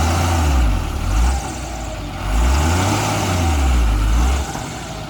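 Heavy diesel engine revved twice, each time the low note rising and then falling back, before settling to a lower idle.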